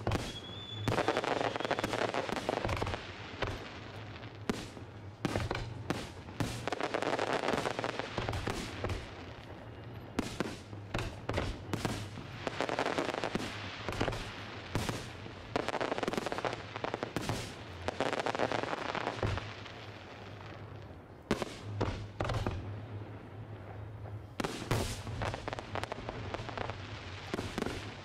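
Aerial firework shells bursting in a rapid, irregular series of sharp bangs, with stretches of dense crackling between them.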